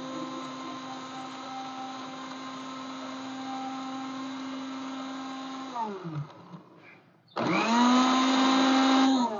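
Small electric mixer-grinder motor grinding bitter gourd into a purée for juice. It runs steadily, then spins down about six seconds in. About a second later it is switched on again, louder, spinning up, and stops near the end: pulsed grinding, little by little, because the bitter gourd had not yet ground smoothly.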